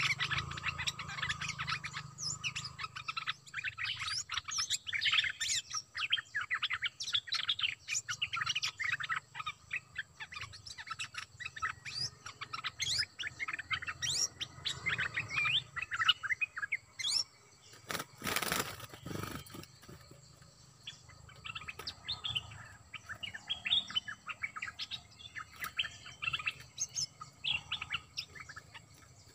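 Bulbuls calling back and forth in quick series of short chirps and whistled notes, thickest in the first half and thinning later. A brief burst of noise comes about two-thirds of the way through.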